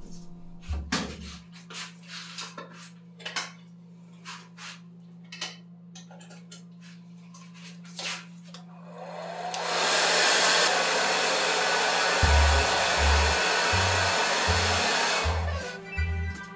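Background music with light clicks, then a loud steady rushing hiss that fades in about nine seconds in and stops about six seconds later, over a thumping bass beat that starts near the end.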